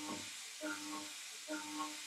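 Steady hiss of an air-mist coolant nozzle spraying the end mill as a CNC mill cuts steel bar. Over it, a soft tonal pattern repeats a little under once a second.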